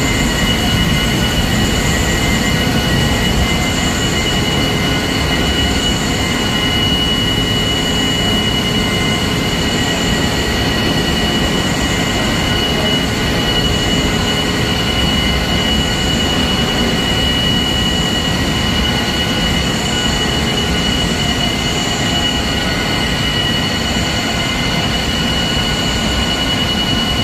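Jiangyin Huafeng rotogravure printing press running in production, a steady mechanical rumble with a constant high whine. A faint high-pitched pulse repeats every second or two.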